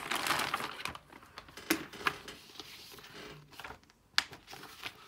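Paper rustling as an instruction booklet and papers are handled, followed by a few light sharp taps, the loudest about four seconds in.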